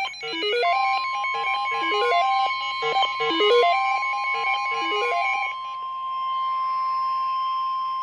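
The emergency alert attention signal of a severe thunderstorm warning: a single steady 1050 Hz NOAA Weather Radio warning alarm tone starts under a second in and holds. For the first five seconds or so it is overlaid by a repeating, quickly stepping electronic alert melody that then stops.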